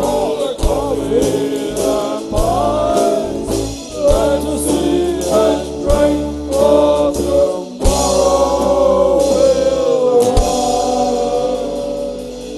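Live band music: singing over drums and guitar, with drum hits through most of it. The last hit comes about ten seconds in, and the song ends on a held chord that dies away near the end.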